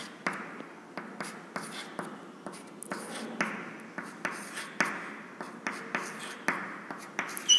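Chalk tapping and scraping on a chalkboard as small circles and minus signs are drawn, a quick stroke about two or three times a second, with a short high squeak near the end.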